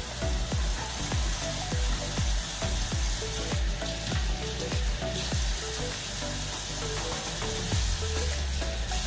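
Kitchen tap running into a stainless-steel sink, a steady hiss, with a gloved hand being rinsed under the stream. Background music with a steady beat and short melody notes plays over it.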